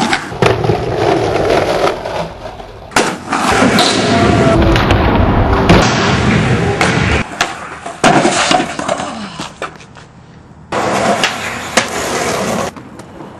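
Skateboard wheels rolling and trucks grinding along ledges, broken by sharp clacks of the board popping and landing.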